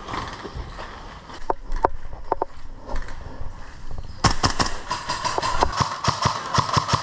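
Airsoft guns firing: a few single shots, then about four seconds in a fast, irregular volley of sharp cracks that keeps going.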